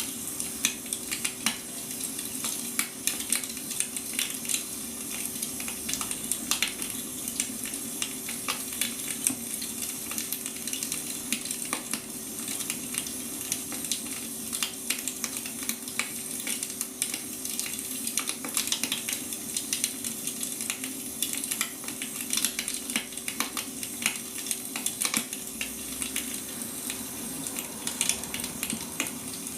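Wood fire burning, with dense irregular crackles and pops over a steady low hum.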